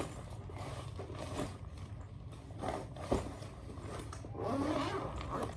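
Rustling and scraping handling noises, with a sharp click about three seconds in.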